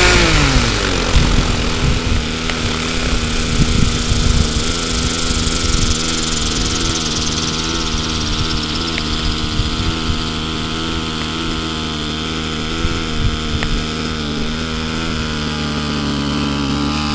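Small gas engine of a large RC helicopter dropping from flying speed to idle in the first second, then idling steadily with the rotor turning on the ground.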